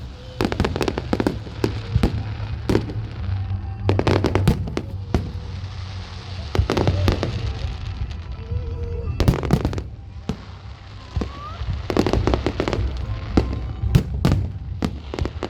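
Fireworks display: repeated loud bangs of bursting shells coming in clusters every couple of seconds, with crackling in between.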